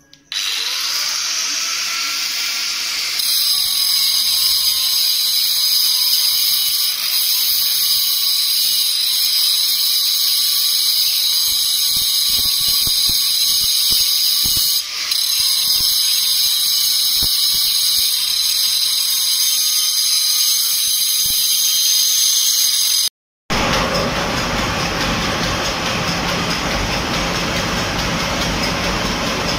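Flour mill machine running with a loud, steady, high-pitched squeal. About three-quarters of the way through the squeal breaks off suddenly and gives way to a steady rushing machine noise.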